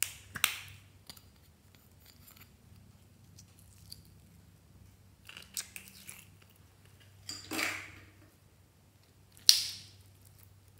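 Glossy glitter slime handled by hand: a small plastic slime tub opened, then the slime pulled out and stretched, giving several separate sharp, sticky snaps and pops. The loudest snap comes near the end.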